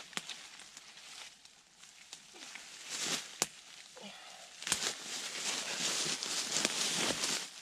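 Dry leaves and twigs on a woodland floor rustling and crackling as a shot roe buck's carcass is taken hold of and moved, with a few sharp snaps. The rustling gets louder about halfway through.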